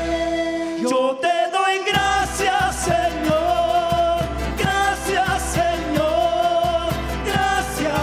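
Andean folk-style worship song: a man singing over panpipes, with bass and a steady beat. The bass and beat drop out for about a second near the start, then come back in.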